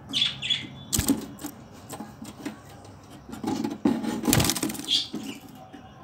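Crested frillback budgerigar giving two short chirps at the start and one more near the end, with bursts of rustling and sharp knocks in between as the bird moves about its plastic-lined enclosure.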